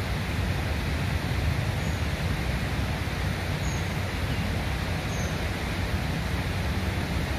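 Steady rushing outdoor noise with no breaks, heaviest in the low end, with three faint short high chirps near the middle.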